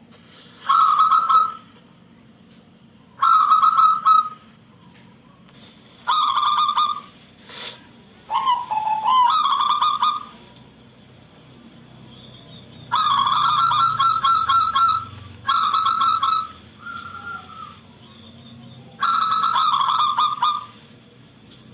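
Zebra dove (local perkutut) singing: a series of about eight trilled, rapidly pulsed coos, each about a second long and separated by short pauses, given in the shrill, high-pitched style prized in a masteran bird.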